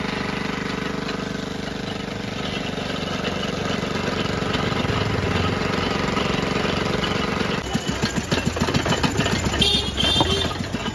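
Small stationary engine running steadily, belt-driving a sugarcane juice roller crusher. About three-quarters of the way in, the sound turns to a rapid, uneven knocking and clattering.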